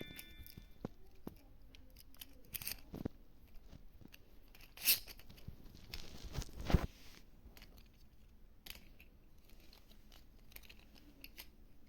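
Packaging being handled and opened: scattered small clicks and rustles, with a louder tear or scrape about five seconds in and another near seven seconds.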